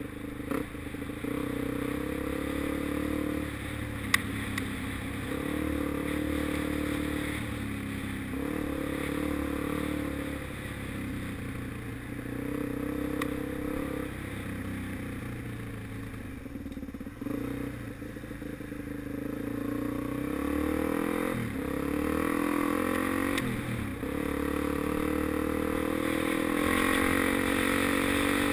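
Suzuki DR-Z400's single-cylinder four-stroke engine running under load, revving up and easing off again and again. There is one sharp knock about four seconds in.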